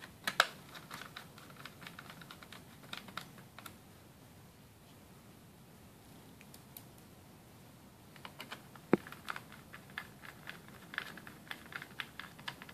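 Small screws being driven into an Asus Eee PC 1005HA's metal chassis cover with a small precision screwdriver: quick runs of light clicks and ticks near the start and again in the last few seconds, with a pause between them and one sharp click about nine seconds in.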